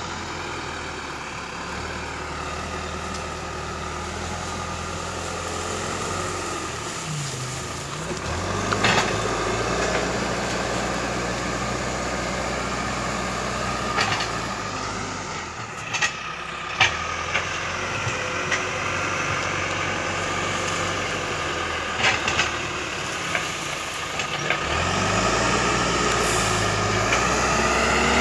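John Deere 310E backhoe loader's diesel engine running under work, its speed shifting a few times and rising near the end, with several sharp knocks and clanks scattered through it.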